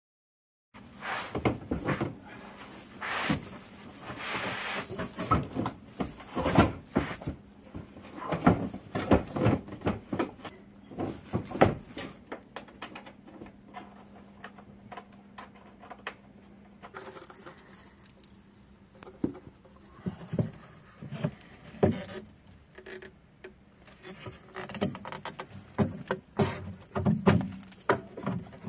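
Irregular clicks, knocks and scrapes of hands and tools working on the underside of a car around the fuel tank. The noises are busiest at the start, ease off about halfway through, and pick up again near the end.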